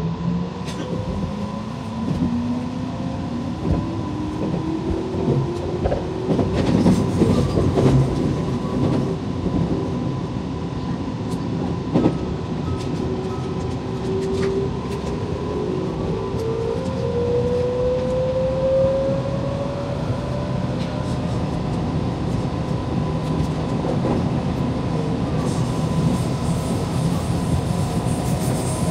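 Electric commuter train running, heard from inside the leading car: a motor whine whose pitch climbs as the train gathers speed, over steady running noise with scattered clicks of wheels on the track.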